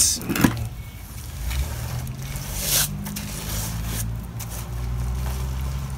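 A few short scrapes and squishes of a trowel and rubber float working wet VersaSpeed patching mortar out of a bucket and onto a concrete pillar base, over a steady low hum.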